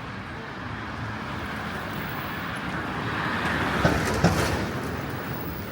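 A road vehicle passing close by: a rising rush of noise that peaks about four seconds in and then fades, with a couple of sharp knocks at its loudest.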